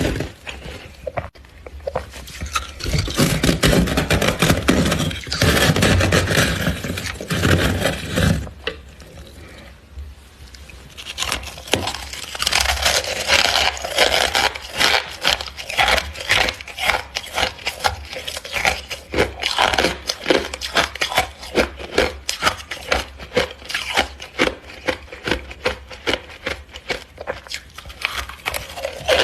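Freezer frost being scraped and crunched: a rough scraping stretch, then rapid, closely packed crisp crunches through the second half.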